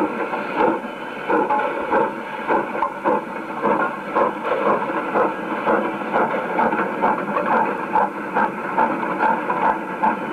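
Steam locomotive working a short train, its exhaust chuffing in a steady beat of about two puffs a second over rattling rail noise. The recording sounds thin, with no low end.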